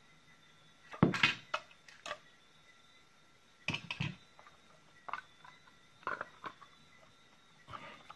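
Hard plastic battery-pack housing parts being handled and fitted together: a series of short clicks and knocks, the loudest cluster about a second in, then smaller ones every second or so.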